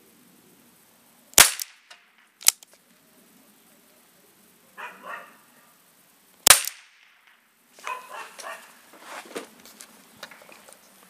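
Zoraki R1 revolver firing 4 mm Flobert rimfire rounds: two sharp, loud shots about five seconds apart, the first about a second and a half in, with a shorter crack about a second after the first shot.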